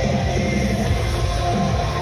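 Loud rock music with a heavy, pulsing low end.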